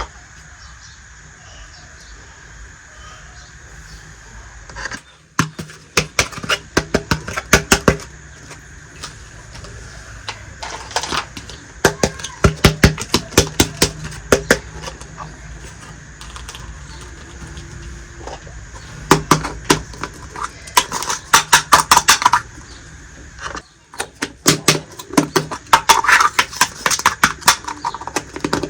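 Small plastic toy kitchen pieces being handled: bursts of rapid, light clicking and tapping, each lasting a few seconds with short pauses between, over a faint steady hum.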